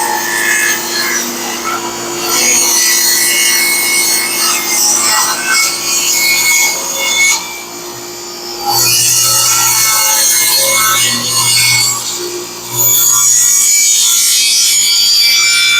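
Power saw cutting through a black walnut slab in long passes, easing off briefly twice as the cut pauses.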